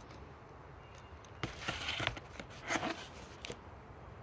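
A few short rustles and light clicks from a leather notebook case being handled and held up to the face, clustered about a second and a half to three and a half seconds in.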